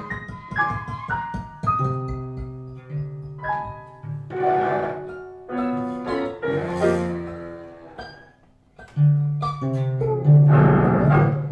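Free improvisation on keyboard, bass guitar and cello: scattered keyboard and plucked notes over sustained low notes. The playing thins to a brief pause about eight seconds in, then comes back louder.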